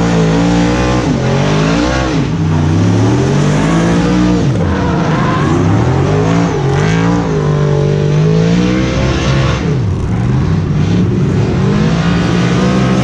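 NASCAR V8 race car engine being driven hard, revving up and dropping back again and again with throttle and gear changes, its pitch rising and falling every second or two.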